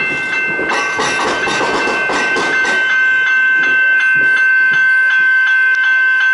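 Electric suburban train rolling past a level crossing, its wheels clattering over the rail joints, while the crossing's warning bell rings. After about three seconds the train noise drops away and the bell, ringing about three times a second, is the loudest sound.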